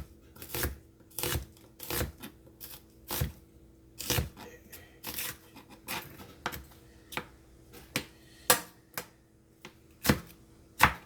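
Kitchen knife slicing through an onion, the blade knocking on the cutting board in a quick, uneven series of strikes, about two a second.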